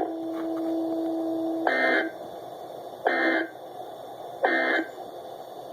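NOAA Weather Radio Emergency Alert System end-of-message: three short screeching digital data bursts, about a second and a half apart, marking the close of the tornado watch alert. A steady low tone comes before the first burst.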